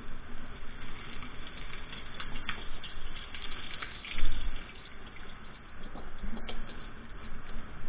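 Food sizzling in a frying pan, a steady crackling hiss with scattered sharp clicks. A heavier thump comes about four seconds in.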